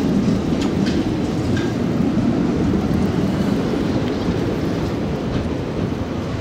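Old Valmet articulated tram rolling past close by at low speed: a steady rumble of steel wheels on the rails, with a few light clicks in the first couple of seconds.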